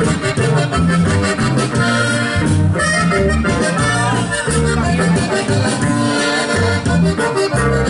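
Norteño band playing live: a button accordion leads the tune over electric bass, guitar and drums, with a steady bouncing rhythm and no singing.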